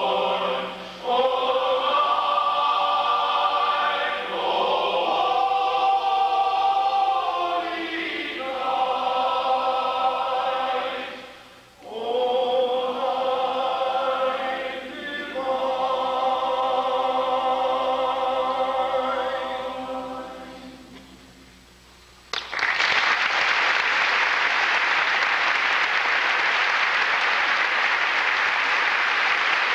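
Men's barbershop chorus singing a cappella in close harmony, in several phrases, ending on a long held chord that fades out about 21 seconds in. About a second later the audience breaks into loud applause that carries on to the end.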